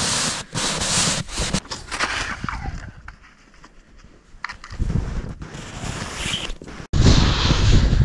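Crunching and scraping of someone wading through deep, knee-deep snow, in uneven bursts with a quieter lull in the middle. After a cut near the end, wind buffets the microphone.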